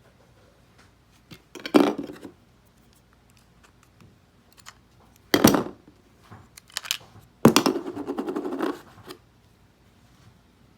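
Clicks, scrapes and rattles of a small plastic remote control being handled as its battery compartment and coin-cell batteries are worked, in short bursts about two seconds in, at five and a half seconds, and a longer rattling stretch from about seven and a half to nine seconds.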